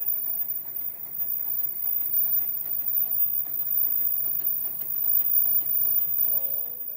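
Medical face-mask production machine running, a steady mechanical noise with faint rapid ticking.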